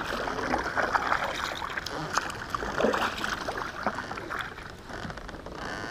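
Kayak paddle strokes through shallow, weedy water: the blades dipping and splashing in an irregular rhythm, with water running and dripping off them.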